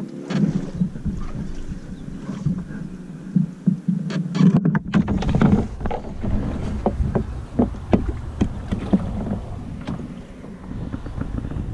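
Canoe hull pushing into reeds: stems brushing and scraping along the hull, with a run of sharp knocks and scrapes from about five seconds in.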